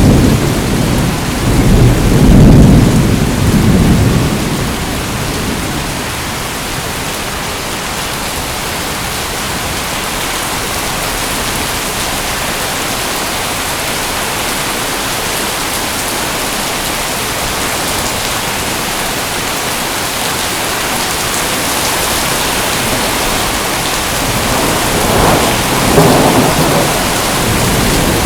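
Steady heavy rain hissing, with thunder rumbling through the first few seconds and again near the end.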